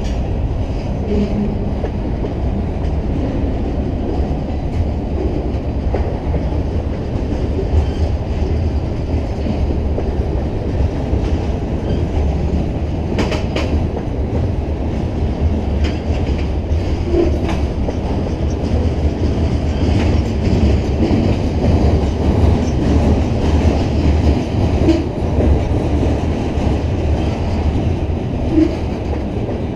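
Freight train of covered hoppers and gondolas rolling past close by: a steady rumble of steel wheels on the rails with clickety-clack over the rail joints and scattered sharp clicks, the loudest about 13 seconds in.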